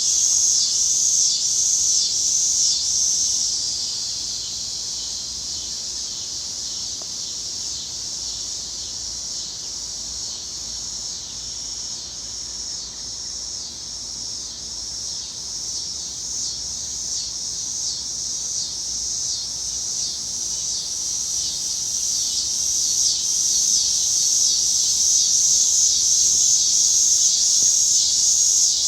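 Chorus of cicadas buzzing, a dense high-pitched drone that pulses for the first few seconds, eases off, then swells louder over the last several seconds.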